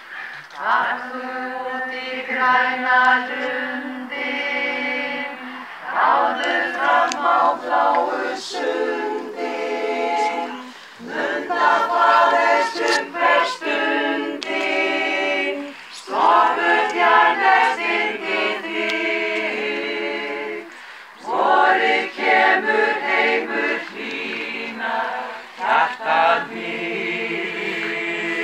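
Mixed choir of men and women singing a cappella in Icelandic, in phrases of a few seconds with short breaks between them.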